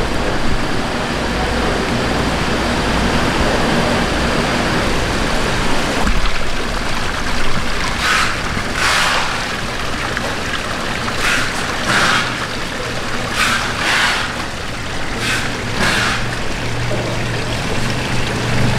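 Steady noise of a seafood market's live-fish tanks, then, after a sudden change about six seconds in, water trickling and bubbling in an aerated fish tank, with about five short hissing rushes of water.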